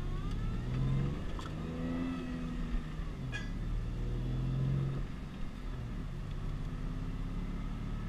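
Ford Mustang's engine pulling hard as the car accelerates, heard from inside the cabin; its pitch climbs and drops back three times.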